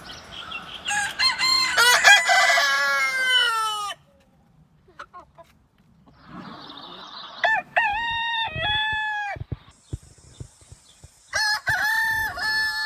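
Roosters crowing: three long crows a few seconds apart, the first made of two crows overlapping.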